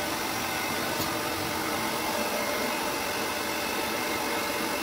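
Handheld hair dryer running steadily, blowing on a wet cat's fur, with one faint click about a second in.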